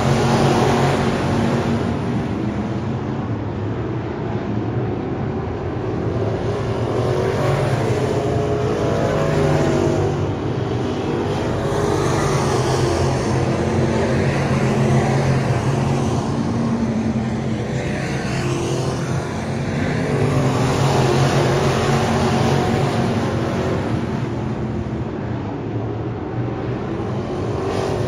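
Engines of a pack of dirt-track race cars at racing speed on the oval, swelling and easing every few seconds as the cars come round the track.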